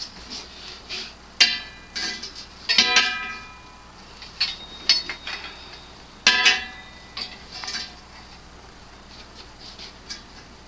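Steel parts knocked and handled against each other, several sharp clanks that each ring on with a bell-like tone, the loudest about a second and a half, three and six seconds in, then quieter taps.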